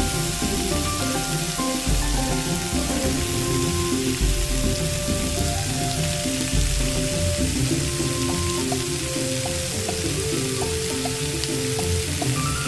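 A leg of beef sizzling as it roasts on a spit over glowing charcoal, a steady hiss of fat and juices, with background music of held notes laid over it.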